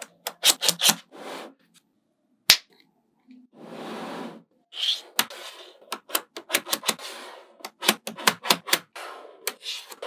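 Small magnetic balls clicking sharply as strips of them are snapped onto a magnetic-ball structure: quick runs of clicks, a pause, and a second-long rush of noise about four seconds in.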